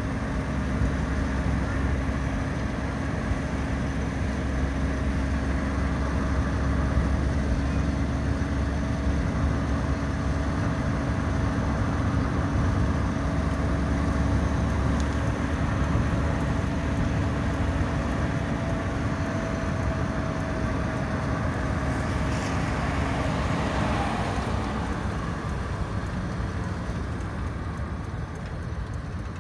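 A car driving at steady speed: a steady hum with low rumble and road noise. The hum falls in pitch about 24 seconds in as the car slows.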